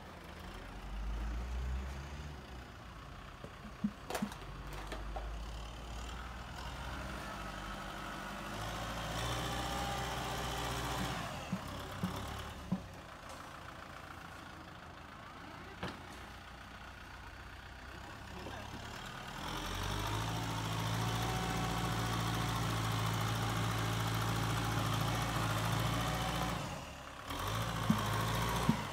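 Kubota farm tractor's diesel engine running under load as the tractor pushes soil with a front dozer blade. The engine gets louder for several seconds in the second half, then drops back, and a few sharp knocks stand out over it.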